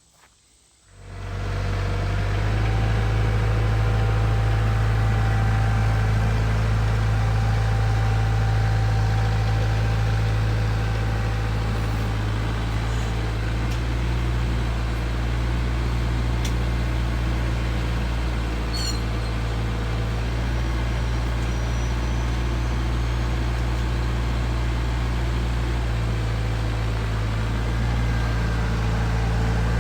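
Tractor engine running steadily at an even speed, starting about a second in.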